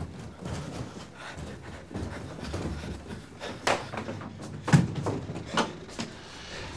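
Footsteps coming down a staircase, with a few irregular sharp knocks and thumps; the loudest comes about two-thirds of the way through.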